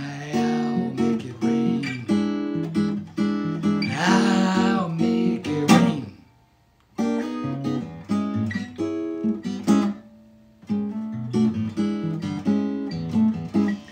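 Acoustic guitar playing an instrumental passage of picked and strummed chords. The playing stops for about a second around six seconds in, then resumes.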